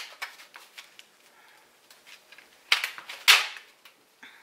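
Kitchen utensils clinking against a mixing bowl of chocolate pudding: scattered light clicks, then two sharp knocks about half a second apart a little under three seconds in.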